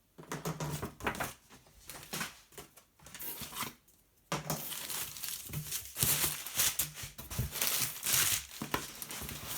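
Packaging wrapping being crinkled and crumpled by hand, in irregular rustling bursts with a brief pause about four seconds in.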